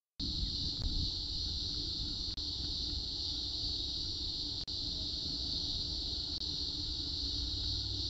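Steady high-pitched hiss over a low rumble, with a few faint ticks.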